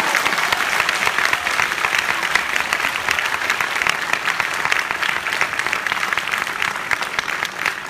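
Audience applauding: dense, even clapping from many hands.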